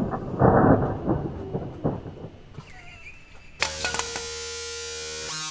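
Cordless drill grinding through the sheet steel of an electrical box, in two loud spells in the first two seconds, as one of the box's punch-out knockouts gives way. A steady buzzing tone comes in about three and a half seconds in.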